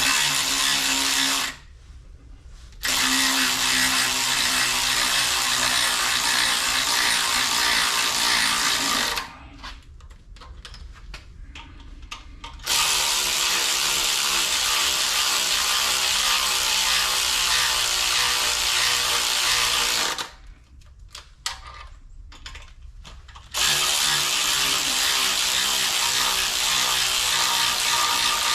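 Cordless power tool motor running in four long spells with short pauses between them, driving cylinder head bolts down into a Northstar V8 block. Each run is a steady whine of several seconds.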